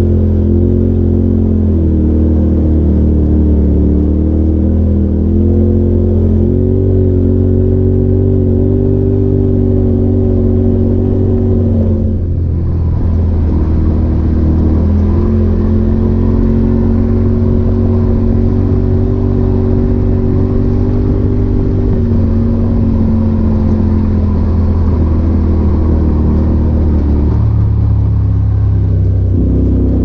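Polaris RZR Turbo side-by-side's engine running at a steady, loud cruise from inside the open cab. The pitch eases off briefly about twelve seconds in, then holds again and drops near the end as the machine slows.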